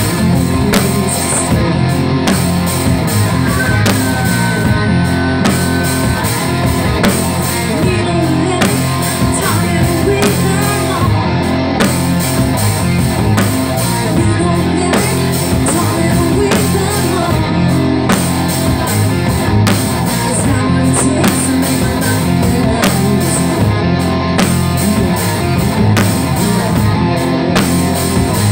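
Live rock band playing a loud, steady number: electric guitar on a Les Paul, bass and a drum kit, with a woman singing.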